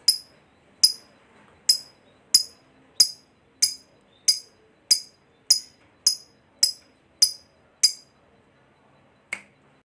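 Fischer's lovebird giving short, sharp, high chirps one at a time, evenly spaced about three every two seconds, with a pause and one last chirp near the end.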